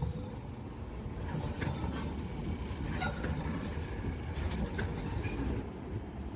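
Electric tram running along street rails: a steady low rumble with a few sharp clicks.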